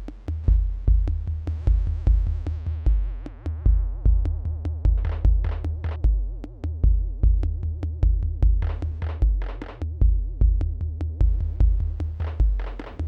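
Electronic jam on Korg Volca drum machine and analog synths: a steady kick drum at about two beats a second with ticking hi-hats under a wobbling synth tone. In the first few seconds a noisy sweep falls in pitch, and later bursts of noisy snare-like hits come in and drop out.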